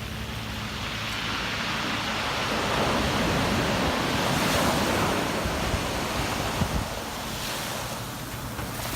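Pacific Ocean surf: a wave breaking and washing up the sand, swelling over the first few seconds, loudest around the middle, then easing off.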